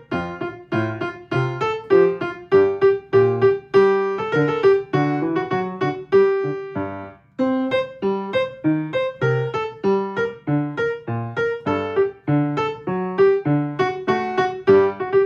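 Piano playing a choir's alto part over lower chord notes, at a slowed practice tempo, a steady run of struck notes that breaks off briefly about seven seconds in.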